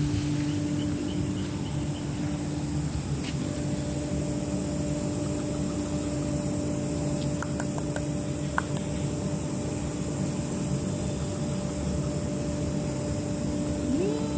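Steady mechanical hum of a motor running, with a few faint clicks about halfway through and a short rising whine near the end.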